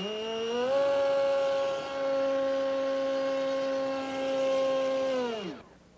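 A small model airplane's Astroflight brushless electric motor runs its 5¼×4 propeller at full speed, about 17,000 RPM, giving a high, steady whine. It spins up quickly at the start, holds for about five seconds, then winds down and stops.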